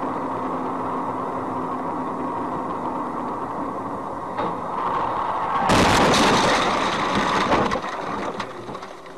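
Road and engine noise heard inside a car driving on a snowy highway. About two thirds of the way in, a sudden loud rushing, crashing noise lasts about two seconds, then dies down.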